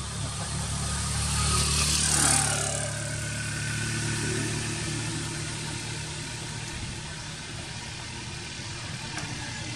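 Motor vehicle engine running in a steady low hum, swelling to its loudest about two seconds in and then easing back to a steady level.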